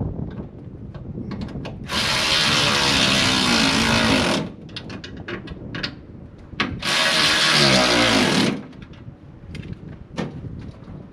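Power drill running in two bursts of about two seconds each, the second sliding down in pitch as it stops, with small knocks and clicks between.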